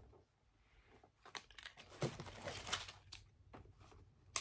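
Crinkly material being handled by hand, rustling and crinkling in irregular bursts that are loudest in the middle, with a sharp click just before the end.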